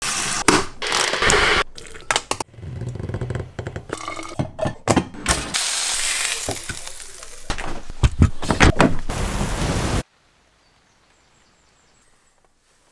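Tap water running into a kettle, then a run of kitchen sounds: clattering and knocks of a frying pan and utensils, with a hot pan sizzling. The sounds stop abruptly about ten seconds in.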